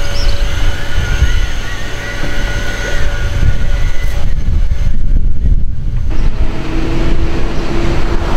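A loud, steady low rumble of wind buffeting the microphone and the noise of a moving vehicle.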